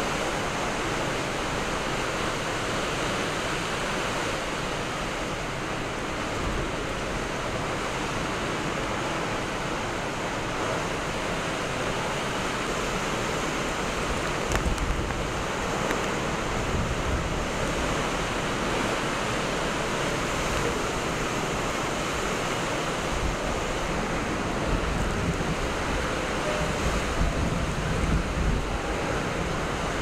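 Typhoon-force wind and torrential rain making a steady, heavy hiss. Gusts buffet the microphone in low rumbles, about halfway through and most in the last few seconds.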